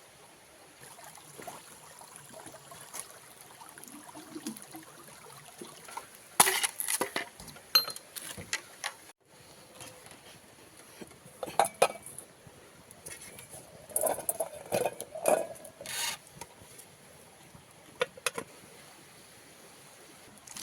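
Cookware clattering: pots and utensils knocked and clinked in several separate bursts over a faint steady hiss.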